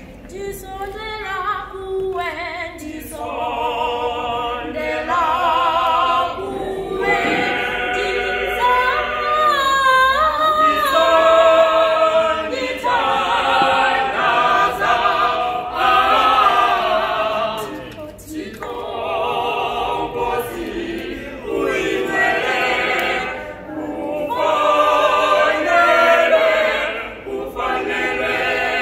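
A small mixed group of teenage girls and boys singing together a cappella, several voices at once in harmony. The singing pauses briefly twice, past the middle and again a few seconds later.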